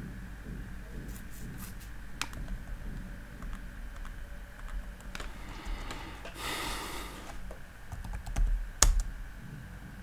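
Typing on a computer keyboard: scattered keystrokes with a short hiss a little after the middle, and one sharp, louder click about a second before the end.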